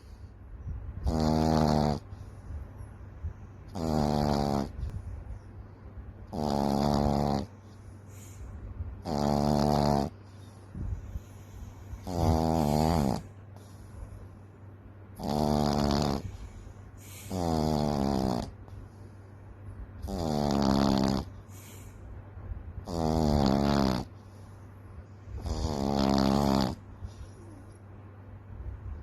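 Frenchton puppy (Boston Terrier–French Bulldog mix) snoring in her sleep: loud snores, each just under a second long, coming about every two and a half seconds in a steady rhythm.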